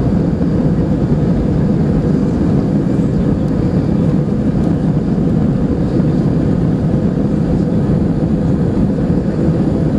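Airbus A320-family airliner accelerating down the runway on its takeoff roll, heard from inside the cabin: the jet engines at takeoff power make a loud, steady, deep rumble.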